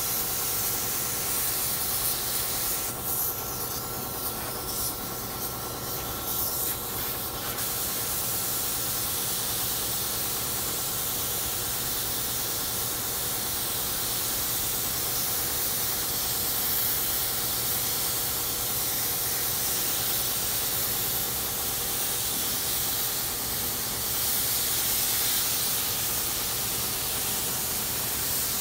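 Air spray gun hissing as it sprays thinned white pre-catalyzed lacquer, with fan and fluid choked well down for a light shading coat. The hiss thins out for a few seconds near the start, and a steady hum sits under it.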